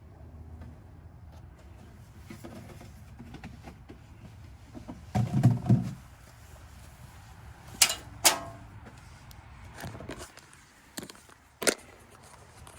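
Handling noises while working on a car: a dull thump about five seconds in, then a few sharp metallic clicks and knocks.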